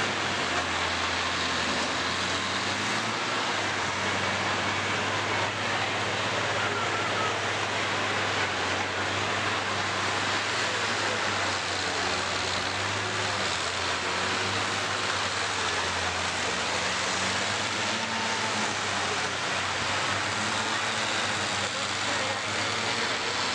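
Engines of several derby combine harvesters running steadily: a low, even engine drone with no sharp impacts.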